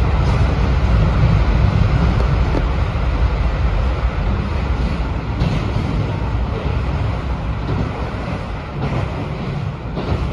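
Running noise inside a moving JR 721-series electric train: a steady low rumble of wheels on rail with a general hiss, easing slightly toward the end.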